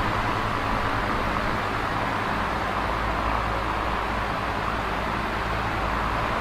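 Large box fan running steadily: an even rush of air with a low, steady hum beneath it.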